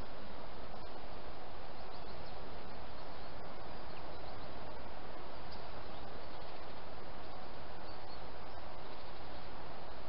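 Steady hiss of a trail camera's microphone, with a few faint short high bird calls and soft ticks scattered through it.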